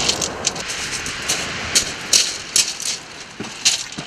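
Wind blowing on the microphone, with irregular sharp crunches and rattles of shingle as the angler moves on the pebbles.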